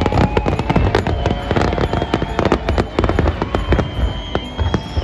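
Fireworks display in full flow: a dense, continuous crackle of many small reports every second from crackling-star shells, over a steady low rumble of bursting shells.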